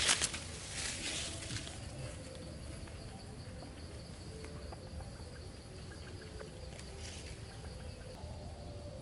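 Footsteps swishing through tall grass for the first second or two, fading as the walker moves away. After that, a faint steady insect drone, a thin high tone, carries on over quiet outdoor background.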